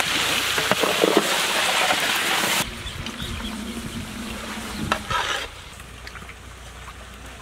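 Marinated chicken pieces sizzling loudly in hot ghee in a large metal pot. The hiss drops off abruptly about two and a half seconds in. After that comes quieter frying, with a few sharp knocks and scrapes of a metal ladle stirring in the pot.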